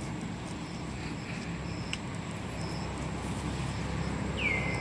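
Steady low outdoor background rumble with a few faint high chirps and a single click. Near the end comes a whistle-like call that falls in pitch and then levels off.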